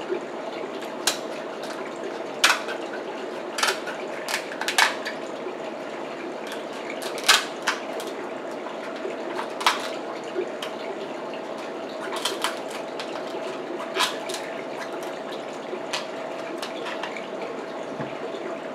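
King crab leg shell being snipped and cracked with kitchen scissors: a string of sharp snaps and cracks at irregular intervals, over a steady background hum and hiss.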